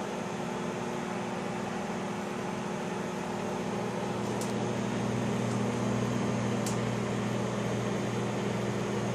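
Microwave oven running with a steady low hum and fan whir while heating pizza pockets, with two faint ticks about four and a half and six and a half seconds in.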